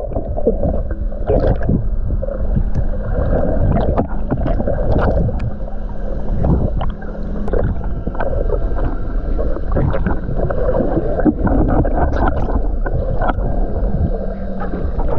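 Underwater sound from an action camera held below the surface while swimming: a muffled, dense rumble of moving water with scattered sharp clicks. A faint steady hum runs through the first half and returns near the end.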